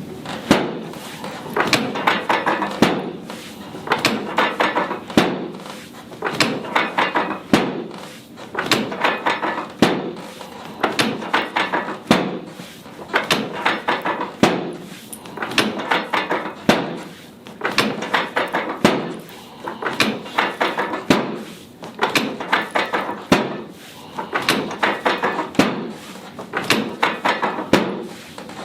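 Chiropractic drop table's thoracic drop section clacking down under repeated thrusts to the middle and lower thoracic spine, about a dozen sharp knocks evenly spaced about two seconds apart, with softer rustling between them.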